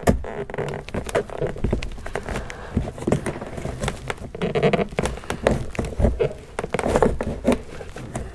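Plastic trim tool prying at a car's interior door-panel trim: irregular clicks, taps and plastic creaks as a hidden retaining clip is worked loose.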